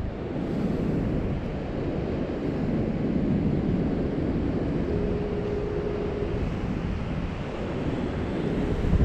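Wind buffeting the microphone over the steady rush of surf breaking on a sandy beach. A faint, brief steady tone sounds a little past the middle.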